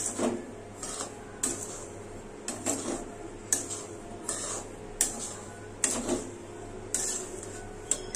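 A flat spatula scraping through dry semolina (sooji) in a metal pan, in repeated stirring strokes about one a second, each a short gritty scrape against the pan.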